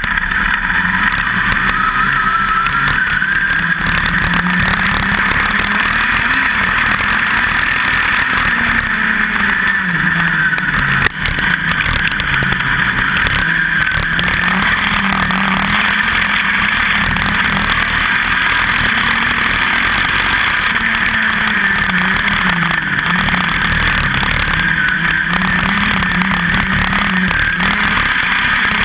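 A USAC midget race car's four-cylinder engine at racing speed, heard from on board the car, running loud and steady. Its pitch falls and rises every few seconds as the throttle comes off and back on.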